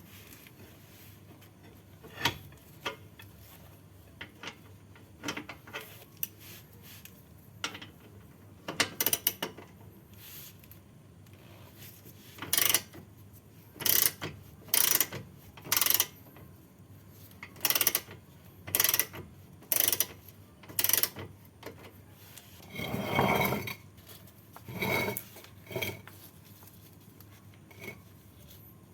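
Ratchet wrench working a bolt in a run of short strokes, about one a second through the middle, with a longer turn a little later.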